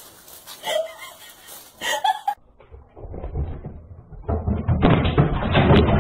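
A flat-screen TV rattling and knocking on its stand as a cat pushes at it, a rough clatter that builds over the last couple of seconds.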